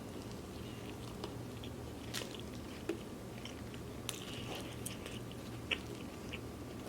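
Close-miked mouth sounds of a person chewing food, with a few scattered short wet clicks and smacks.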